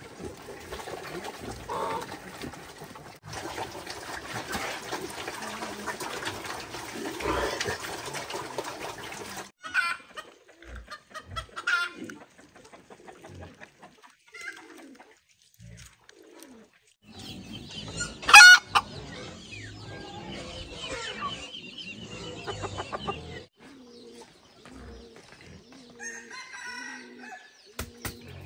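Farmyard chickens clucking, with one loud rooster-like call about eighteen seconds in, which is the loudest sound. Pigeons cooing low and repeatedly near the end.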